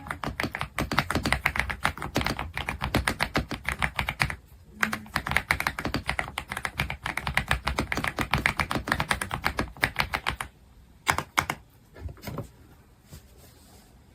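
Fast typing on an Aula F75 gasket-mount mechanical keyboard with Ice Vein linear switches: a rapid run of key clacks, a short break about four seconds in, typing again until about ten seconds in, then a few separate key presses.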